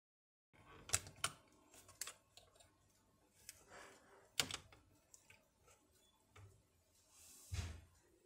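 Scattered sharp plastic clicks and knocks from a Panasonic KX-T4311 answering machine's cassette mechanism as it is gripped and worked loose from its plastic housing, with a duller thump near the end.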